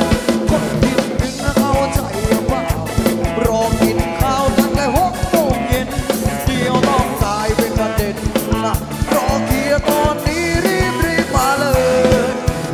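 Thai ramwong dance band music fed straight from the mixing desk: a steady beat with a gliding, bending melody line.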